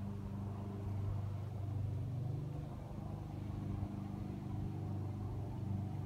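A steady low engine hum that holds unchanged throughout.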